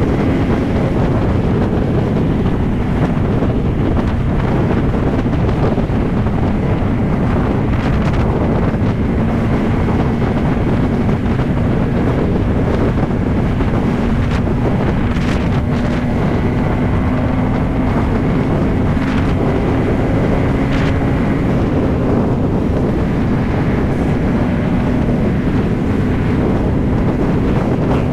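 Motorcycle engine running steadily at highway cruising speed, its note holding nearly level, under heavy wind noise buffeting the microphone.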